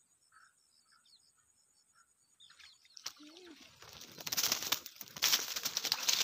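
Faint insect chirping, then from about three seconds in loud rustling and crackling of dry leaves and water plants as a small rohu is swung ashore on a float rod and lands in them and the angler crouches into the vegetation.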